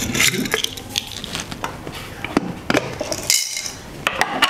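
Scattered clicks, knocks and light clinks of a glass jar of coffee beans being handled on a wooden table.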